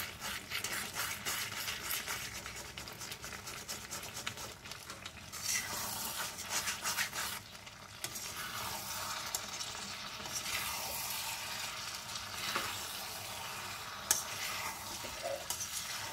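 A spatula stirring potatoes, peas and capsicum in a karahi, the vegetables sizzling in the oil, with irregular scraping strokes and a few sharp clicks of the spatula against the pan.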